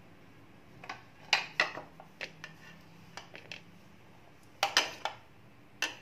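Metal spoon clinking and tapping against a bowl of curd and a plate, in scattered sharp clicks with two louder clusters, about a second and a half in and near five seconds.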